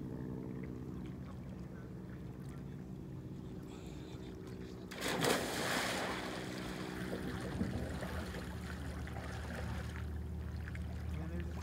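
A person jumping feet-first off a dock into a lake: one loud splash about five seconds in, then lighter water sloshing as he moves in the water. A steady low hum sits underneath.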